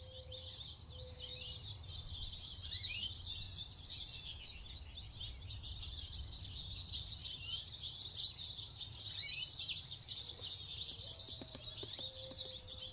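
Many small birds chirping and twittering together in a dense, steady chorus, with a faint low rumble beneath.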